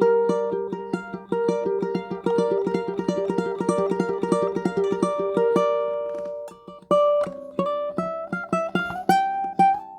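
Tenor ukulele played fingerstyle: rapid repeated plucked notes over a sustained low note, then from about seven seconds in a run of single notes climbing in pitch to a ringing high note.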